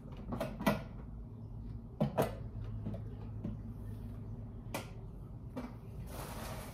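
Clicks, knocks and creaks from handling a small countertop kettle popcorn machine as its batch is dumped, with a low steady hum underneath and a brief rustle near the end.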